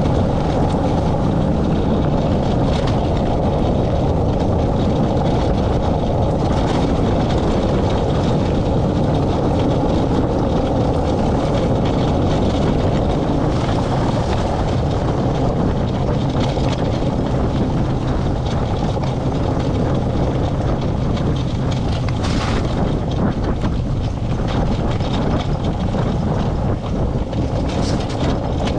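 Four-wheeled dog-team training rig rolling fast over a dirt trail: a steady rumble of tyres on earth, rattling metal frame and wind on the microphone, with a few sharp knocks from bumps.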